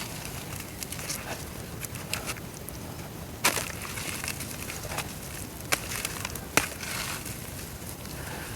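Chunks of dry brown dirt crumbling and crackling in water: scattered sharp cracks and crackles, the loudest about three and a half seconds in.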